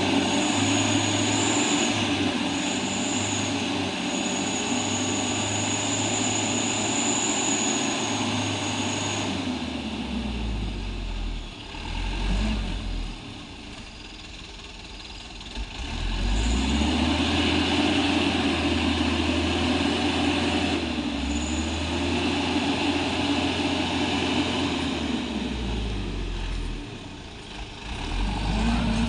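Truck engine working under load, its revs rising and easing off; twice the engine drops back to a lower, quieter note, about ten seconds in and again near the end, before picking up again. A thin high whine runs over it during the first third.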